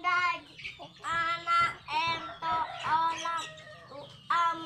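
A high voice singing a run of short, held notes.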